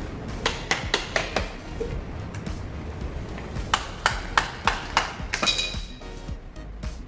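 Hammer blows on metal during installation work: a quick run of about five sharp strikes, then after a pause another run of about six, the last one ringing briefly. Underneath is a steady low rumble from a large exhaust fan.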